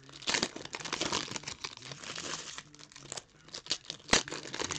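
Shiny wrapper of a Contenders football card pack crinkling and tearing as it is worked open by hand, in a run of irregular crackles, with one sharp snap about four seconds in.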